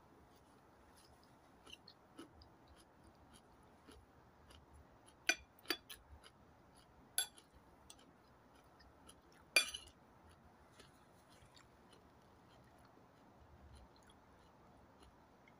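Quiet chewing, with about five sharp clicks of a fork against a plate between five and ten seconds in, the last one the loudest.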